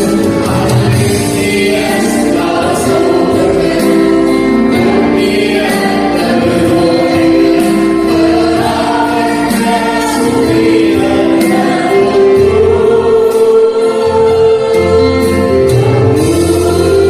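Arabic Christian hymn sung by a choir over instrumental backing with a steady bass and light percussion.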